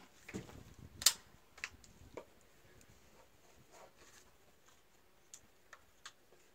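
Faint, scattered clicks and light ticks from handling, the sharpest about a second in and a few softer ones after.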